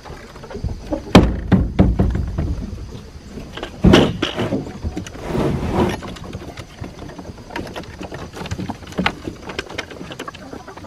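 Wooden knocks and thumps as the pop door and ramp of a wooden chicken coop are opened. The loudest come about a second in and again near four seconds, followed by lighter scattered taps as the hens come out.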